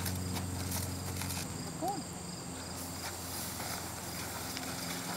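Insects droning steadily in the background over a low steady hum, with one short rising-and-falling call about two seconds in.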